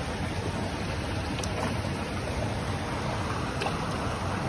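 Steady rush of water flowing through a stone-lined trout pond channel, an even hiss with a few faint ticks.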